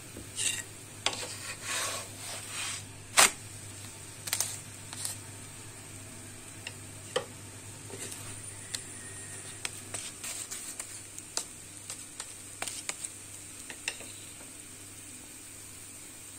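Katmer flatbread cooking in a buttered nonstick pan: scattered small pops and clicks over a steady faint hum, with one sharper knock about three seconds in.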